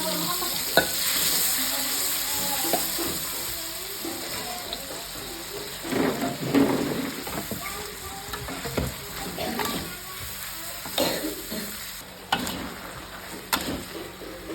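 Water spinach and mushrooms stir-frying in hot oil: a steady sizzle, loudest over the first few seconds and easing off after that, with scattered clicks and scrapes of a spatula against the pan.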